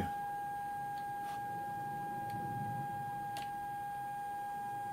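Steady high-pitched electrical hum, one clear tone with a fainter overtone, from the roughly 400 Hz, 12-volt supply energising the instrument's small power transformer. A few faint clicks sound over it.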